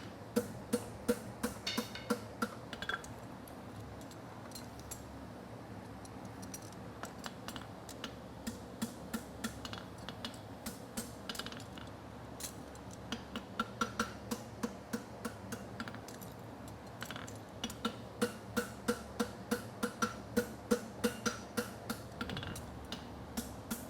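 Hammer striking a concave steel horseshoe on an anvil while bending the toe: a short run of strikes in the first few seconds, a pause of about ten seconds, then a longer run of steady strikes, about two to three a second, from about thirteen seconds in. A steady fan hum runs underneath.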